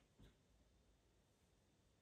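Near silence: room tone, with one faint, short sound about a quarter of a second in.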